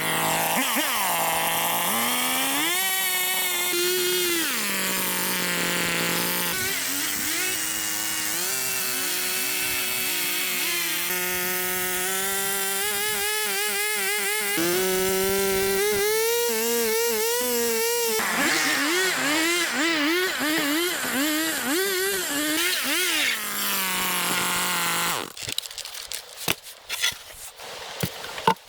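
A two-stroke chainsaw running, its engine pitch repeatedly climbing and sagging as the throttle and load change. It cuts off suddenly near the end, leaving a few clicks and knocks.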